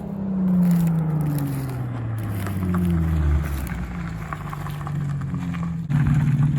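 Infiniti G35's VQ 3.5-litre V6 with test pipes in place of the catalytic converters, its exhaust note falling slowly in pitch for about four seconds as the revs drop, then holding steady. It turns suddenly louder near the end.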